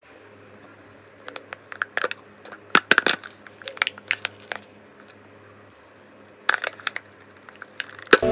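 Foil peel-off seal of a potato-chip canister being pulled back, crackling and crinkling in irregular bursts as it is handled, over a faint steady low hum.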